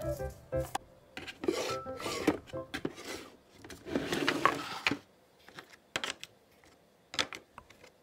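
Rubbing and scraping handling noises in two stretches, one about a second and a half in and a louder one about four seconds in, with scattered clicks and brief snatches of background music.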